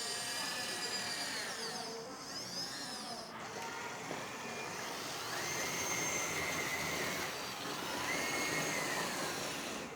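Hydraulic pump of a 1/14-scale RC hydraulic excavator whining while the arm works, its pitch rising and falling in repeated arcs. It is on mix control, so the pump speeds up and slows with the control inputs.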